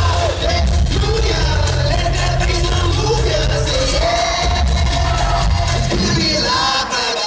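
Live pop-rock band playing loud, with a male lead singer over drums and heavy bass.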